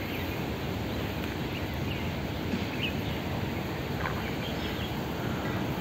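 Steady outdoor background noise, wind on an open rooftop, with a few short, faint bird chirps.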